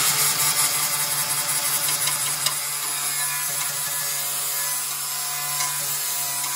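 Angle grinder with a flap disc running steadily and sanding rust off the thin steel window frame of a VW T4 tailgate: a constant motor hum under a rasping grinding noise.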